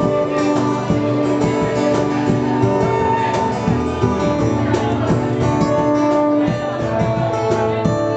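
Live acoustic band playing an instrumental break: acoustic guitars strumming and picking, with a fiddle bowing long held notes over them.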